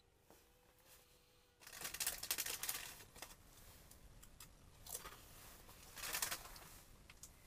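Crackly rustling handling noise in three bursts: about two seconds in, around five seconds, and about six seconds in. A faint steady hum is there before the first burst.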